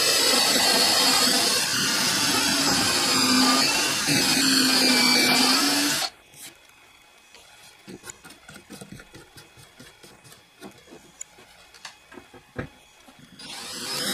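12 V cordless drill running with its bit in a wooden board, a steady motor whine that cuts off suddenly about six seconds in. Then small clicks and taps from handling the drill and bit, until the drill starts running again near the end.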